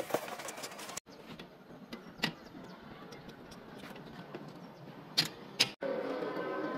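A few sharp metallic knocks from a steel air-conditioner wall bracket being handled and fitted, over low background noise, one about two seconds in and two close together near the end. The sound breaks off abruptly twice at edit cuts.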